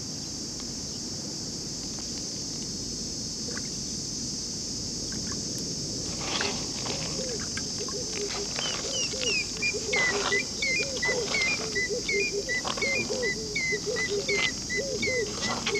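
Steady high-pitched insect chorus. From about six seconds in there are a few clicks, then an animal calls over and over in short chirps, about two or three a second.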